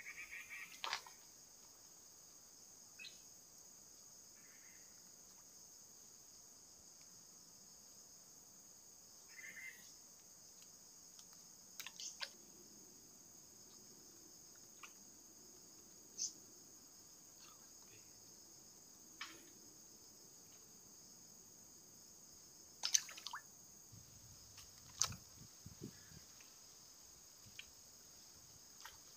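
Quiet pond-bank ambience: a steady high-pitched insect chorus, with scattered small clicks and taps, the loudest of them near the end.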